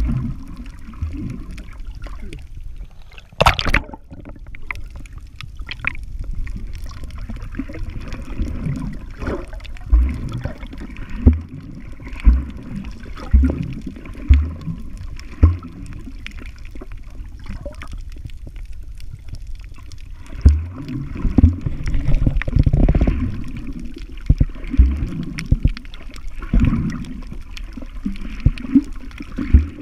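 Muffled underwater water sound picked up by a camera held beneath the surface while snorkeling: sloshing and gurgling, with irregular low dull knocks and a brief sharp splash-like burst about three and a half seconds in.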